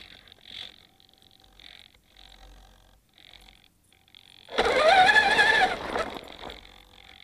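Electric motor and drivetrain of a Traxxas Summit RC truck whining loudly as it accelerates, about four and a half seconds in. The pitch rises and then falls over about a second and a half, with a few short faint whirs before it.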